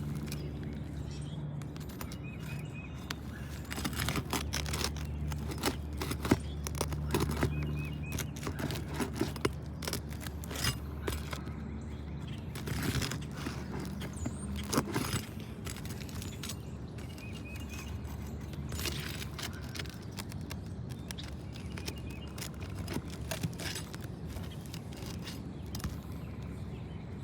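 Irregular clicks and scrapes of a roof snake and hands working under asphalt shingles, prying them up to free the nails.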